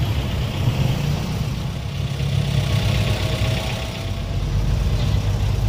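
Street traffic: car engines running at low speed in slow-moving traffic, giving a steady low rumble with a general hum of traffic over it.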